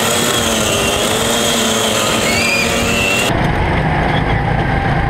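Go-kart engine running as the kart drives around the track, its pitch wavering up and down with speed. About three seconds in the sound changes abruptly to a heavier, noisier low rumble.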